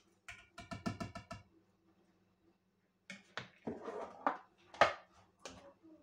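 Wire whisk beating an egg mixture in a plastic bowl: a quick run of light clicks for just over a second. After a pause, a few separate knocks and clatters as kitchenware is set down and moved.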